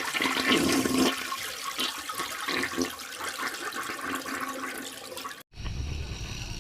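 Water of a waterfall rushing and splashing in a steady hiss, cut off suddenly about five and a half seconds in, followed by a low rumble.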